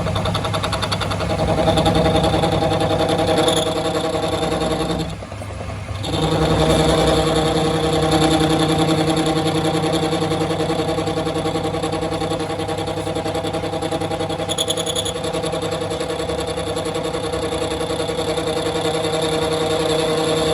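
A workshop machine's motor running steadily with a constant pitch, briefly easing off about five seconds in before running on at the same speed.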